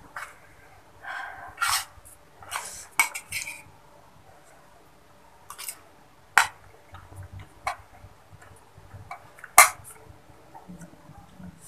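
A metal spoon scraping and clinking against a plate of fried flat rice noodles as someone eats, in scattered short strokes. The sharpest, loudest clink comes near the end.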